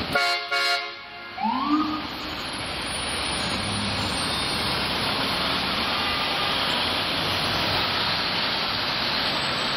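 Steady din of Manhattan street traffic. Near the start there is a short pitched tone, and about a second and a half in a brief siren whoop rises and falls.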